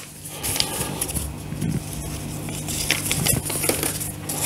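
Paper instruction leaflet rustling as it is handled and unfolded, with scattered light clicks and taps, over a faint steady low hum.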